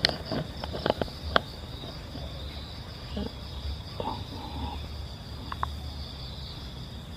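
Steady insect chirring, held on two high pitches throughout. A few light clicks and knocks in the first second and a half.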